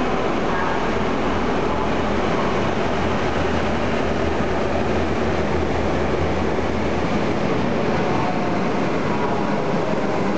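Diesel locomotives hauling a freight train past at close range: the engines give a steady low drone that fades about seven seconds in, under the constant rumble of the train rolling by.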